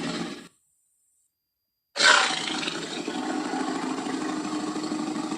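Tyrannosaurus rex roar sound effects: one roar dies away about half a second in, then after a silent gap another starts loud and abruptly about two seconds in and holds steady.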